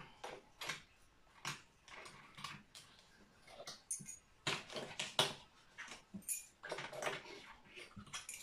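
Rummaging in a kitchen drawer: utensils and small items clicking and knocking against each other and against plastic organizer trays, in many light separate clicks.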